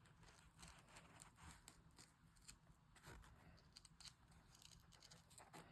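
Faint, irregular snips of scissors cutting through embroidered vinyl backed with thin non-fray fabric.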